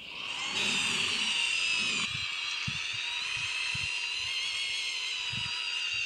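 Electric motors of an R/C Liebherr LR 632 track loader model whining steadily as it works the bucket and tracks, pitch dipping slightly about two seconds in, with irregular low knocks from the tracks and dirt underneath.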